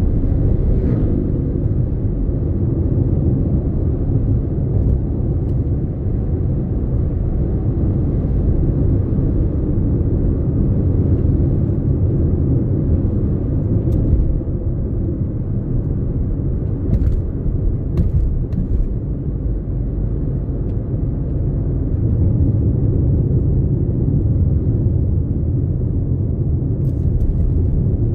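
Road and engine noise heard inside a moving car's cabin: a steady low rumble, with a few light clicks from about halfway on.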